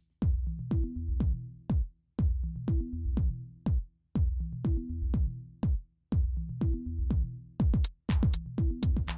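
Electronic dance music with a drum-machine beat: punchy kick drums about two a second over a low synth bassline, with denser hits toward the end.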